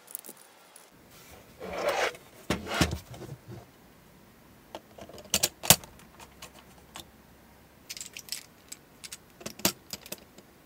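Plastic Lego bricks handled and pressed together: scattered sharp clicks and light plastic clatter, with a brief rustle about two seconds in.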